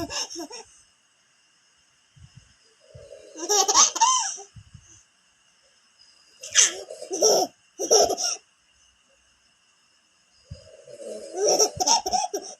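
A baby laughing in several hearty bursts, each set off by an adult's snoring sounds.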